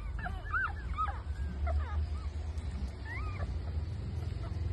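Newborn puppies squeaking and whimpering while they nurse: a quick run of short, high, mewing cries in the first second or two, then scattered single cries, one about three seconds in. A low steady rumble lies underneath.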